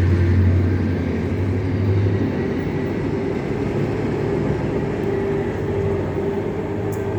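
Class 73 locomotives hauling a train of Mark 1 coaches, a steady mechanical drone with a strong low hum that drops away about two seconds in and a steady mid-pitched tone above it.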